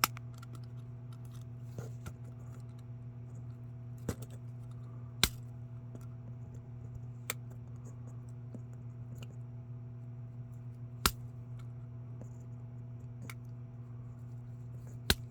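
A handful of sharp clicks and taps, a few seconds apart, from small parts being handled while working a tight pin out of a model truck's fifth wheel, over a steady low hum.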